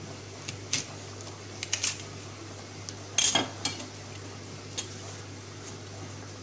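A metal knife tapping and clinking against a plate or dish while a black radish is cut and hollowed out: a scatter of sharp taps, the loudest a ringing clink about three seconds in. A steady low hum runs underneath.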